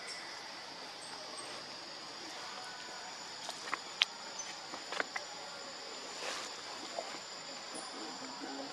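Steady chorus of forest insects: a continuous high buzz with a thin, even whistle above it. A few sharp clicks come in the middle.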